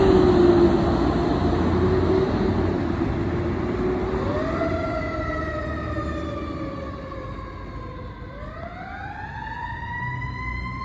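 A fire engine's heavy diesel engine runs close by as the truck pulls away. About four seconds in, its siren starts wailing: it winds up quickly, slides slowly down, then winds up again near the end, fading as the truck drives off.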